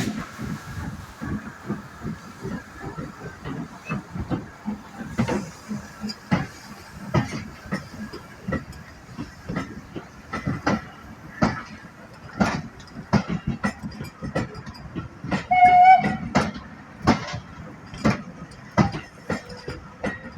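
Steam train hauled by 'Jinty' 16440, an LMS Fowler 3F 0-6-0 tank engine, pulling away, with a steady run of sharp beats at about two a second. A short whistle sounds about three-quarters of the way through.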